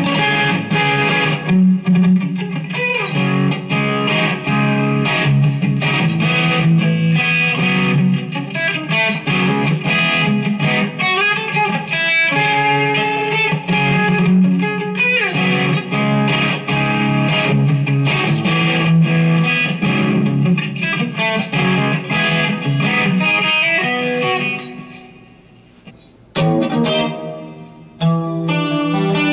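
Electric guitar strumming chords through a Zoom G5 multi-effects pedal and a Line 6 combo amp. About 24 seconds in, the playing drops away and rings out. A short strum follows, and the full chords resume near the end.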